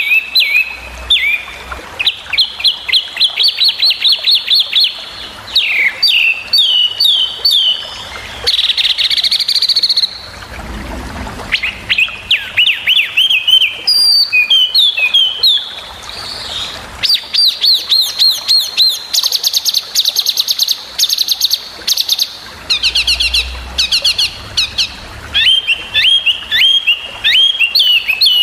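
Brown-chested jungle flycatcher (sikatan rimba dada coklat) singing: bursts of rapid, sharp repeated notes and fast trills, with quick down-slurred whistles and short pauses between phrases. These are the sharp 'tembakan' (shot) phrases that bird-keepers play as a training recording for cage songbirds.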